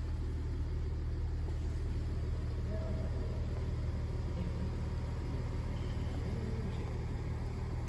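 Volkswagen Amarok's 3.0-litre V6 TDI diesel engine idling with a steady low hum, heard from inside the cabin.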